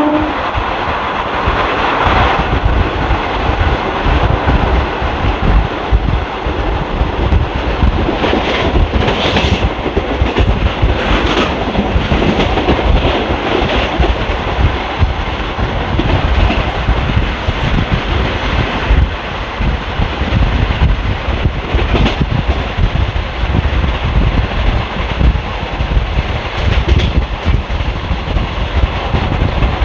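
Steady rolling noise of an Indian Railways ICF passenger coach at speed, heard from the window: wheels on rail, rushing air and a deep rumble, with sharp clacks over rail joints now and then. A locomotive horn blast cuts off just as it begins.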